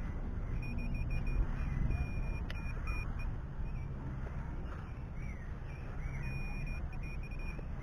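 A handheld metal-detecting pinpointer beeps: short rapid pulses that run into a longer steady tone, twice, the sign that its tip is close to buried metal. Under it, hands rustle through grass and there is handling noise.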